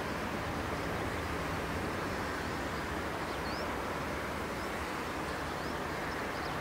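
Steady low hum and running noise of a Yoro Railway electric train standing at a station platform, with a few short, faint rising bird chirps in the middle.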